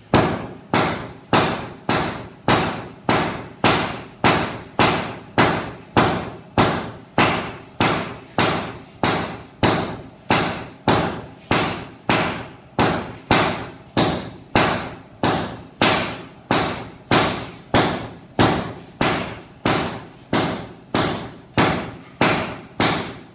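Sledgehammer and hand hammer taking turns striking hot steel on an anvil, a steady, even rhythm of about three blows every two seconds, each blow a sharp metallic strike with a short ring.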